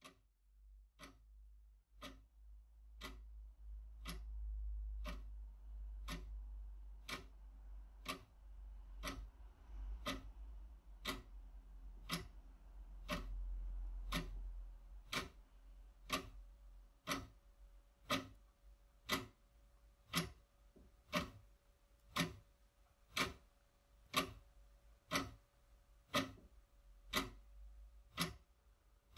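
A clock ticking steadily and evenly, with a low rumble beneath it through the first half.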